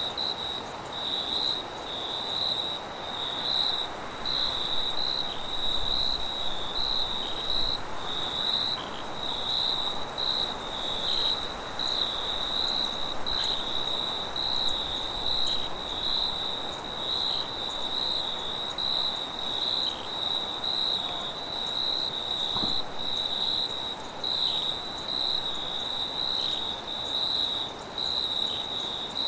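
Crickets chirping steadily in a continuous pulsing chorus, over a soft hiss of wind.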